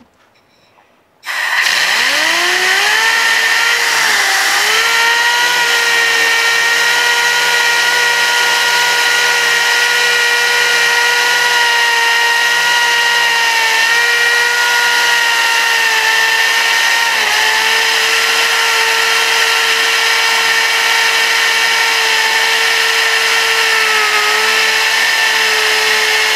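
Compressed air from an air blow gun driving a DIY 3D-printed air turbine and its propeller. Starting about a second in, a loud air hiss comes with a whine that rises in pitch over a couple of seconds as the turbine spins up. The whine then holds steady over the hiss, dipping briefly now and then.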